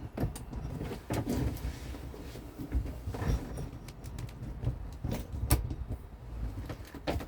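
A hand rivet tool clicking and clacking as rivets are set into a metal bimini frame, with a handful of sharp metallic clicks scattered through a low handling rumble.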